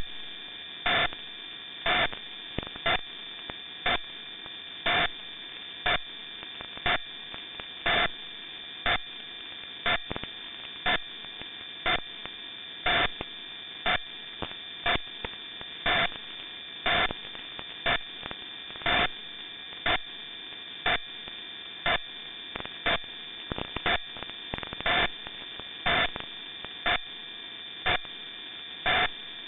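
Longwave radio reception from a WebSDR receiver tuned near 75 kHz: a steady hum and hiss with several high whistling tones, broken by a loud pulse about once a second. Some of the pulses are longer than others.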